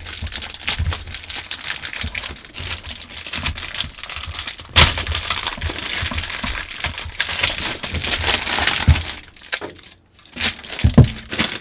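Clear plastic bag crinkling and crackling as hands peel and unwrap it, with one loud sharp crackle about five seconds in and a short pause near the end.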